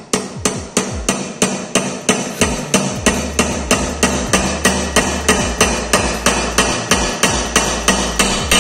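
Ball-peen hammer striking a small steel key into a hole in an electric motor armature's worm-screw shaft clamped in a steel bench vise. The blows are sharp and evenly paced, about four a second, without a break.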